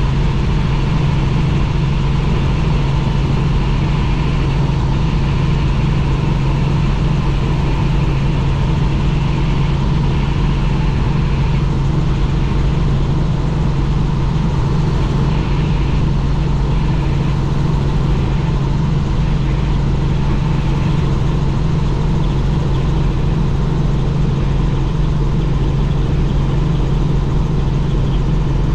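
Helicopter in flight: a steady, unchanging drone of rotor and engine with a strong low hum.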